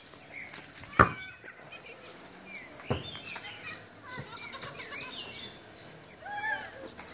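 Small birds chirping and calling in short, quick notes, with two sharp knocks, one about a second in and the louder of the two, the other about three seconds in.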